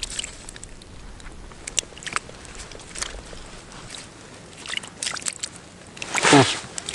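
Scattered crunches and crackles of snow and slushy ice at an ice-fishing hole, with clothing rustling as a crouched angler works the line by hand. Near the end, a short loud sound falls steeply in pitch.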